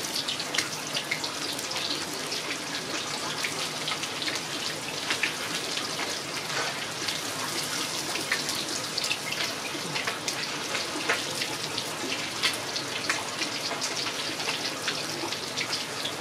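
Crumbed barramundi pieces deep-frying in hot oil in a wok: a steady sizzle thick with small crackles and pops.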